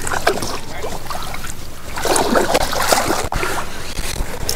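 A paddle splashing and dipping in the water of a small boat being rowed, with a bigger splash about two seconds in and a sharp knock a little after three seconds.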